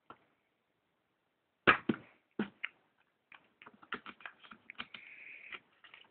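Blu-ray steelbook case being opened and handled. A sharp click about 1.7 s in is followed by a few smaller clicks, then light tapping and rustling as the inserts inside are handled.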